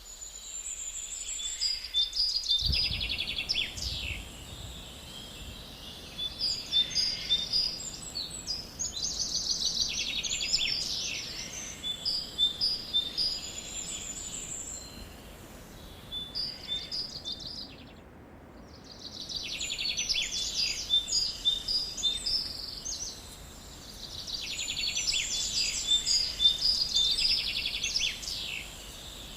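Songbirds singing in repeated phrases of rapid trills and chirps, a new phrase every few seconds, over a faint steady background hiss.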